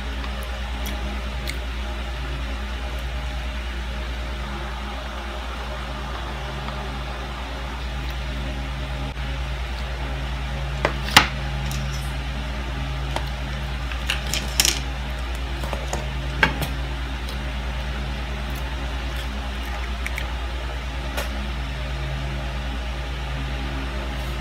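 Steady low hum of a running fan or appliance. About halfway through come a few short, sharp clicks and crinkles of a plastic syrup packet being handled and opened.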